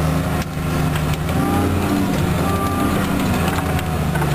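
Snow-grooming tractor's engine running steadily, heard from inside the cab.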